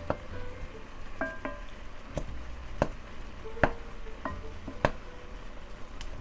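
Wooden spoon stirring and mashing soft cooked cauliflower florets in a metal pot, breaking them into rice. It knocks against the pot at irregular intervals, about once a second, and several knocks leave a short ring from the pot.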